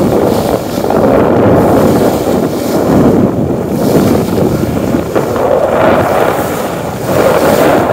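Wind buffeting the microphone on a sailing yacht under way, in uneven gusts, with the rush of sea water along the hull beneath it.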